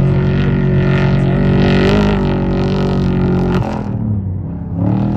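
Off-road race vehicle's engine running hard at steady high revs, cutting back sharply a little over three and a half seconds in, then picking up again near the end.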